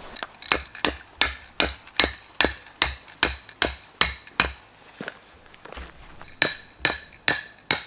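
A hammer driving tent pegs: a steady run of sharp, ringing metal strikes, about two or three a second, easing off for a moment after four and a half seconds, then picking up again.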